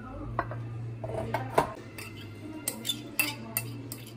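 A kitchen knife scraping and tapping against a glass bowl as chopped vegetables are pushed off the blade: a string of sharp clicks and clinks over a steady low hum.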